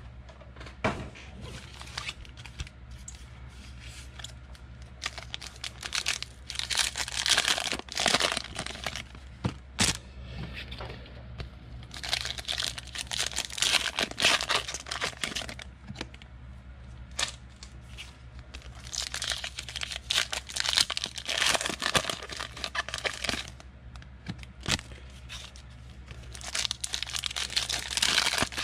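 Foil trading-card pack wrappers being torn open and crinkled by hand. The crackling rustle comes in four bursts a few seconds apart, with sharp little clicks among them.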